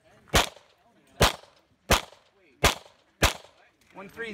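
Five handgun shots fired in a string, about one every three-quarters of a second, with a voice starting right at the end.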